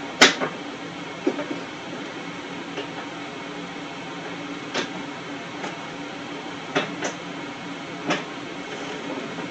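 A scooter's electric starter cranking steadily without the engine catching, a sign of a scooter that will not start. Several sharp clicks sound over it, the loudest right at the start.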